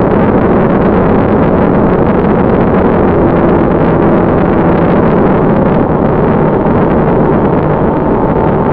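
Loud, steady rush of wind and a model jet's electric ducted fan in flight, picked up by the onboard FPV camera's microphone.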